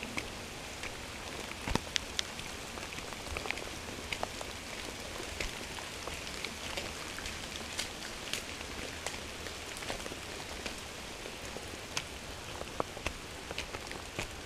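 Steady rain falling, an even hiss with irregular sharp drips and taps scattered through it.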